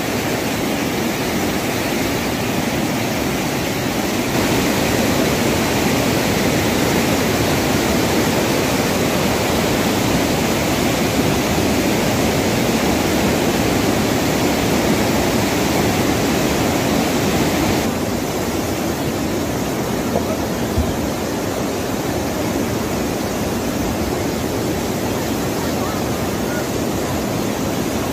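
Fast-flowing muddy floodwater rushing, a steady loud wash of water noise. Its tone shifts about four seconds in and again about eighteen seconds in, when it turns duller.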